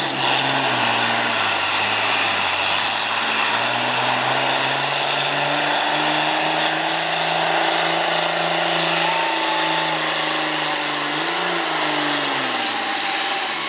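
John Deere farm tractor's diesel engine working at full load as it drags a weighted pulling sled, a loud steady drone. The pitch climbs over the first few seconds, holds, then falls away near the end.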